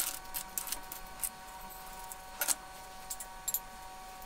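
Loose metal bicycle spokes clinking against each other as they are gathered up by hand, with a cluster of light metallic clicks in the first second or so, then a few separate clicks.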